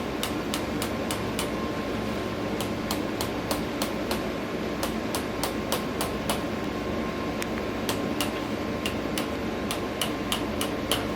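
Quick, sharp percussive taps on the body in runs of about four or five a second, broken by short pauses: tapping massage during a chiropractic treatment.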